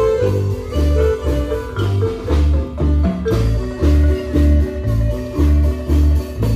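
Marimba band playing a dance tune: quick mallet notes on the marimba over a steady bass beat of about two notes a second.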